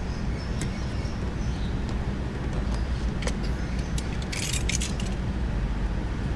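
Light clicks and a brief crinkly rustle, about four and a half seconds in, as window-tint film and a hand tool are worked around the rear-view mirror on the windshield. Under it runs a steady low rumble.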